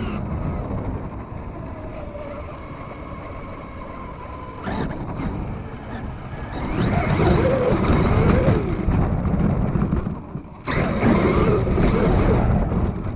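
Radio-controlled car being driven: its motor whines up and down in pitch with speed over a rough rumbling noise, dropping away briefly about ten seconds in before starting again abruptly.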